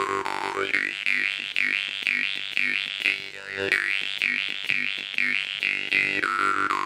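A Makhtsiyev stainless-steel-framed jaw harp being played: a steady mid-range bass drone with a bright overtone melody sweeping up and down in a quick, repeating rhythm.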